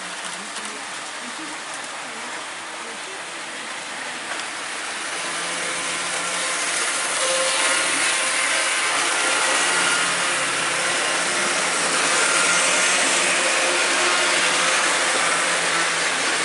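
Model trains running on the layout's track: a steady whir and rumble of motors and wheels on rails, growing louder about five to seven seconds in and then holding.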